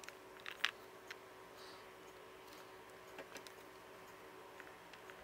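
Quiet room tone with a few faint, sharp clicks and taps from small plastic toy pieces and Play-Doh being handled: several in the first second, two more about three seconds in.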